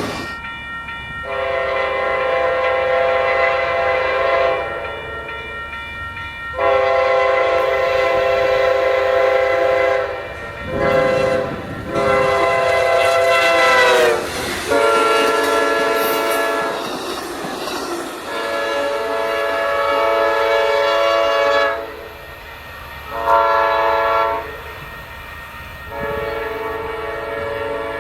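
Locomotive multi-chime air horn sounding the grade-crossing pattern, long, long, short, long, twice over. It is a 'fouled' horn, one with a faulty chime that sounds off-key, and the whole chord sags in pitch as the last long blast of the first sequence dies away.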